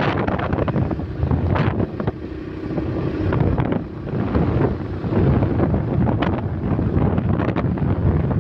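Wind rushing and buffeting against the microphone of a moving vehicle, with the vehicle's road and engine noise underneath. The rush eases for a moment between about two and four seconds in.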